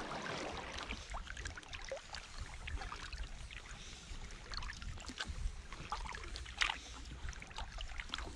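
Kayak on a calm river: faint splashes and drips from paddle strokes and water against the hull, with scattered small ticks and a steady low rumble underneath.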